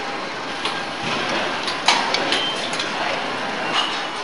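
Engine assembly line ambience: a steady machinery hum with scattered metallic clicks and clinks of tools and parts, the sharpest about two seconds in.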